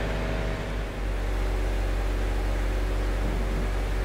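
Work truck's engine running steadily: a constant low hum with a few steady pitched tones and an even hiss.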